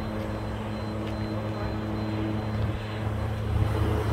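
A steady low mechanical hum at a constant pitch, like an engine or motor running evenly, growing a little louder near the end.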